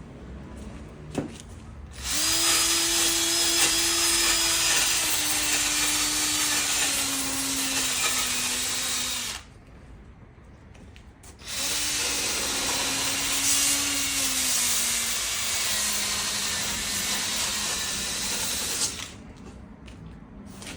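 Handheld electric power tool run in two long bursts of about seven seconds each, its pitch slowly sagging as it is pressed into the work.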